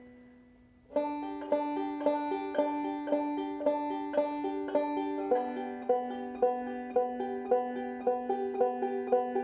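Deering Goodtime open-back banjo played clawhammer style, beginning about a second in. Plucked notes come at a slow, even pace, about two main beats a second, with the strings ringing on beneath them, and the notes shift pitch about halfway through.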